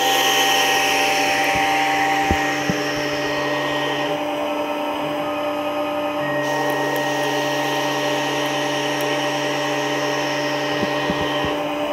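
Tormach PCNC 1100 CNC mill running a cut, with a steady spindle and motor hum over the hiss of the tool cutting metal. A lower hum drops out for about two seconds midway, then returns.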